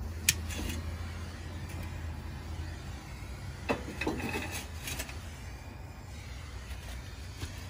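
Sharp clicks and a metallic clank with a brief ring as steel charcoal chimney starters and a butane torch lighter are handled, over a steady low rumble.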